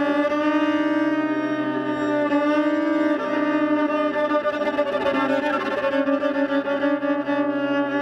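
Solo viola played with the bow in a live performance: long sustained notes over a steady low drone.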